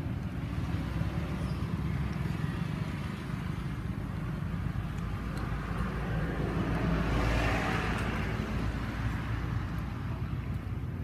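A road vehicle passing over a steady low rumble, growing louder to a peak about seven seconds in, then fading away.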